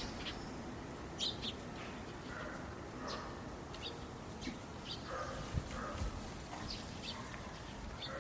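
Small birds chirping now and then, short high calls over a faint steady outdoor background.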